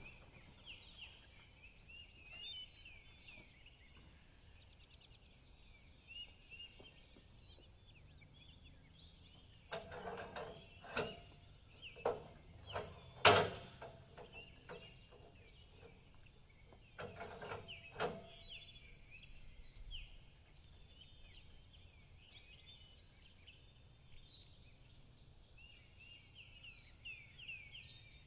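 Faint birdsong, small birds chirping and trilling throughout. In the middle comes a run of sharp knocks and clanks, the loudest about halfway through, from work at the log on a portable sawmill.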